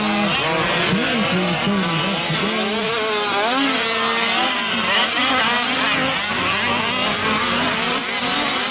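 Several 1/5-scale gas RC trucks' small two-stroke engines revving and easing off as they race, their pitches rising and falling over one another.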